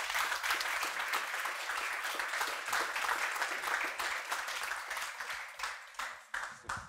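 Audience applauding: many hands clapping together, thinning out near the end to a few last separate claps.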